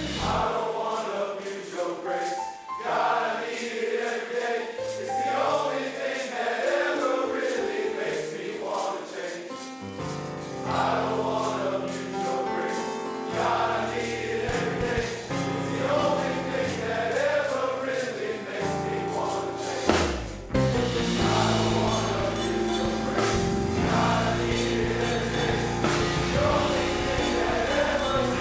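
Men's choir singing a gospel song in harmony with band accompaniment. The accompaniment is light at first; a bass line comes in about ten seconds in, and after a sharp hit about twenty seconds in it grows fuller and louder.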